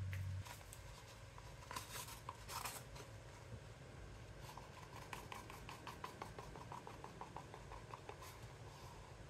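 Wooden stir stick scraping the last of the thick acrylic pouring paint out of a small cup. Faint, short scrapes: a few at first, then a quick, fairly even run of them from about halfway.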